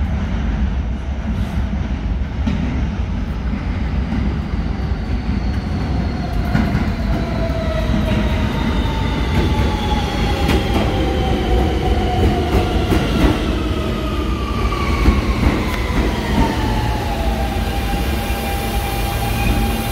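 Siemens-propulsion R160B subway train pulling into the station and braking. The traction motors' several whining tones fall together in pitch over about ten seconds, then level off near the end, over the rumble of the wheels and sharp clicks from the rails.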